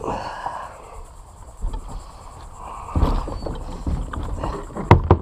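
Plastic sit-on-top kayak being turned by hand against a wooden dock, with bumping and scraping, a heavy thump about three seconds in and two sharp knocks near the end.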